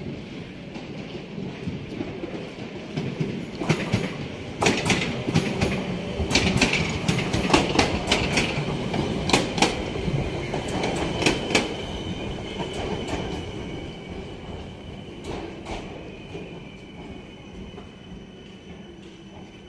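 ŁKA electric multiple unit passing close by: a building rumble with a quick, irregular run of sharp clacks as its wheels cross the rail joints, loudest around the middle. A thin high whine comes in as it passes, then everything fades away.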